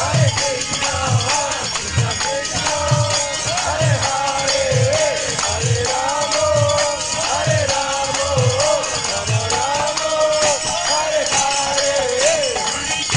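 Devotional kirtan music: a sung melody over a low drum beat about once a second, with jingling hand percussion throughout.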